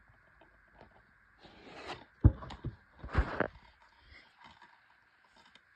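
Handling noise from a plastic DVD case and the camera being moved by hand: short rustles and scrapes, with one sharp knock a little over two seconds in and another burst of rustling about three seconds in.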